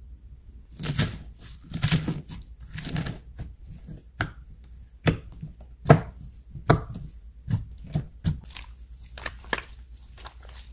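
Slime being squished, poked and stretched by hand: sticky pops and crackles at irregular intervals, short crackly clusters at first, then single sharp pops about a second apart.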